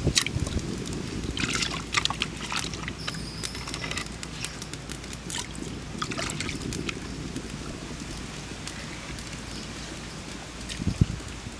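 Lentils boiling in water in a clay pot over a wood fire: steady bubbling with scattered sharp pops and crackles. There are a few louder thumps about eleven seconds in.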